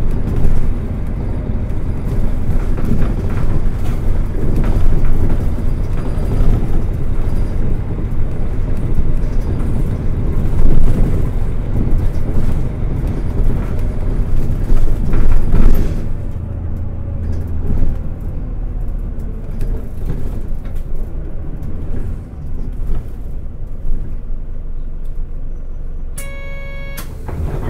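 Mitsubishi Fuso New Aerostar city bus heard from inside while driving: diesel engine and road noise, loud and low, easing to a quieter, duller level about sixteen seconds in. Near the end a short electronic buzzer tone sounds once.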